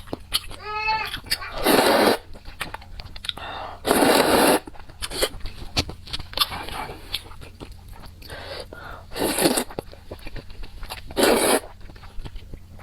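Close-miked eating of spicy chili peppers and chili kimchi: chewing and crunching with many small wet clicks. Four louder rushes of noise of about half a second each are spread through, and there is a brief squeak about a second in.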